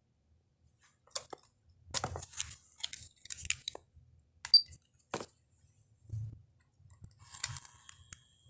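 Plastic clicks, snaps and handling knocks as the detachable faceplate of a Pioneer DEH-3UB car stereo is taken off and clipped back on: a scatter of sharp clicks over several seconds.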